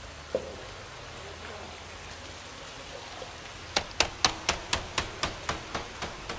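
Steady faint hiss of running water in the fish tanks. From about four seconds in comes a quick, even run of sharp knocks, about four a second.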